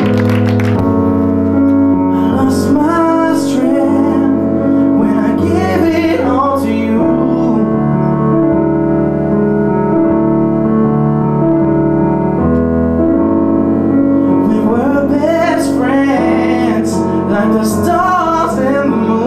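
Digital stage piano playing slow, sustained chords while a man sings over it. He sings one phrase from about two to seven seconds in and another from about fifteen seconds in; in between, the piano chords ring alone.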